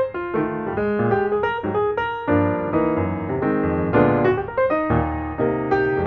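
Background piano music, a run of notes changing several times a second over low bass notes.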